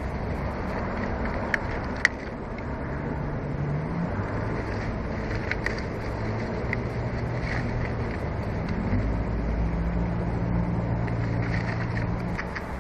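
A distant engine running, its pitch rising twice as it speeds up, over a steady rush of wind, with two sharp clicks about two seconds in.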